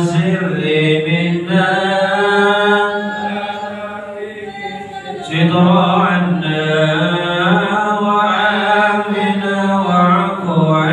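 Islamic devotional chanting: voices singing long, drawn-out melodic phrases, with a short pause about four to five seconds in.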